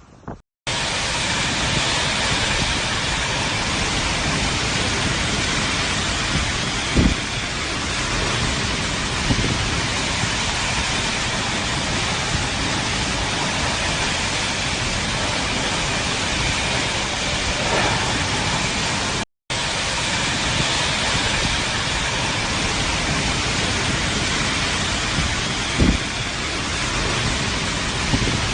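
Heavy rain pouring down in a loud, steady hiss, with a few short knocks standing out from it. It breaks off for a split second a little past midway.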